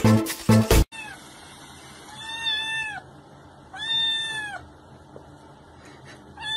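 Electronic dance music with a steady beat cuts off about a second in. Then a kitten mews: two high, arched mews, each under a second long, and a third starting near the end.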